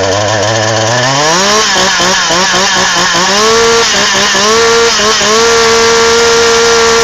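Two-stroke chainsaw running: it idles low, then about a second in the engine is revved up, blipped up and down several times, and held at high revs over the last couple of seconds.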